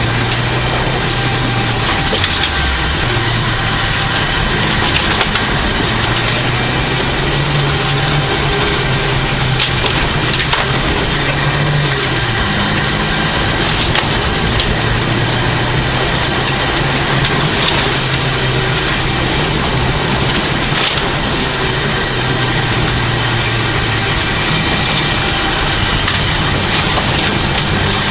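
Toyota Celica GT4's turbocharged four-cylinder engine running hard inside the cabin at rally stage pace, its note rising and falling through the gears. A constant hiss of tyres on loose gravel runs underneath, with stones clicking against the underbody.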